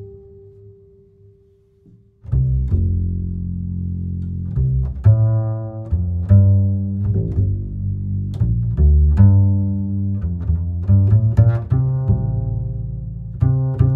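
Background music with deep, low notes. It fades almost to nothing, then comes back in strongly about two seconds in.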